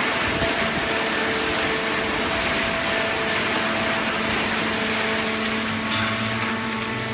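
Continuous hydraulic cardboard baler running: a steady machinery noise with a constant hum, a deeper hum joining about six seconds in.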